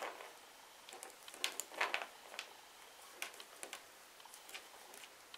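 Metal circular knitting needles, size 5 mm, clicking and scraping faintly against each other as knit stitches are worked, in irregular light ticks with a few stronger clicks about one and a half to two seconds in.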